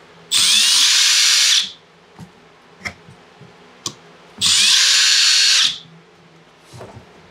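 Power drill-driver running twice, each time for just over a second with a faint rising whine at the start, as it backs Phillips head screws out of a plastic grill. A few faint clicks come between the two runs.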